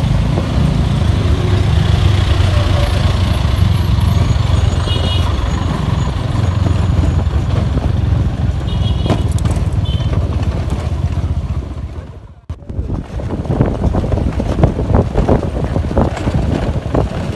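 Motorcycle ride heard from the rider's own camera: engine running with steady, loud, low road and wind noise. About twelve seconds in the sound cuts off suddenly and a choppier, uneven mix of motor-scooter and street sound follows.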